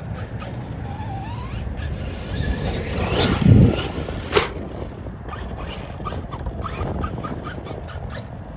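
Electric drive of a Losi DBXL-E 2.0 RC buggy with a high whine that rises steeply as it accelerates about three seconds in. It is followed by a loud low thump and a sharp click a second later, over scattered crunching clicks.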